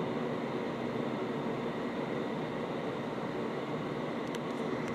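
Steady background noise: an even hiss with a faint steady hum underneath, unchanging and without any distinct events.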